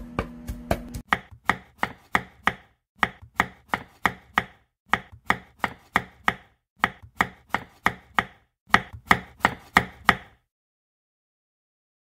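Kitchen knife mincing raw seafood (squid) on a wooden cutting board: quick, even chopping strokes, about three a second, in short runs, stopping about ten seconds in.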